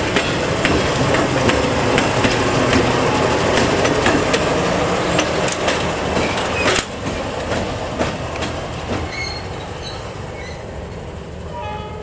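D9E diesel locomotive running light past at close range: its engine is running and its wheels clack over the rail joints at a steady rhythm. The sound falls away over the second half as the locomotive moves off.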